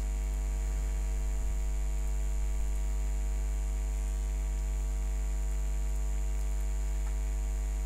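Steady electrical mains hum with a ladder of overtones and a thin high whine above it, unchanging throughout, with a faint click or two.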